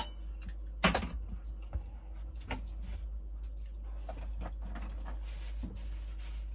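A few sharp clinks and knocks of a utensil against a pot, the loudest about a second in, over a steady low hum. A soft hiss runs through the last two seconds or so.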